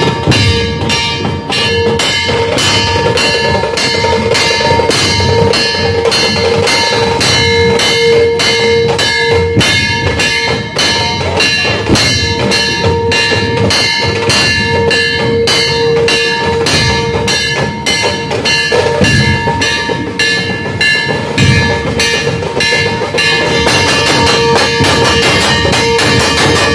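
Music with a fast, even drum beat, about three strokes a second, under steady ringing bell-like tones.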